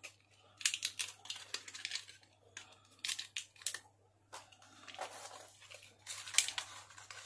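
Clear plastic blister packaging crinkling and crackling in the hands as it is fitted back together, in irregular crackles with a brief pause about four seconds in.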